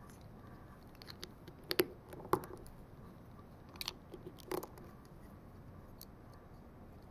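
Plastic Lego bricks clicking and snapping together as they are pressed onto a stack by hand: a handful of sharp clicks with light ticks of handling between, a pair about two seconds in and another pair about four seconds in.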